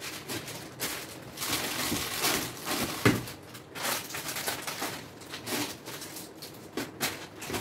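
Rustling and light clattering of spice containers and packets being handled and put away in a storage box, with a sharper knock about three seconds in.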